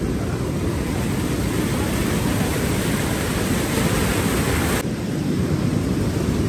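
Steady rushing of the fast-flowing Merced River at the top of Vernal Fall, a dense low noise. The hiss in it dulls suddenly about five seconds in.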